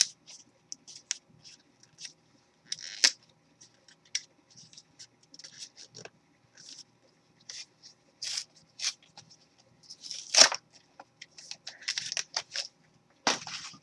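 Foil booster-pack wrapper being handled and torn open, crinkling in short irregular bursts with small clicks, a few louder crackles about three seconds in, near ten seconds and near the end.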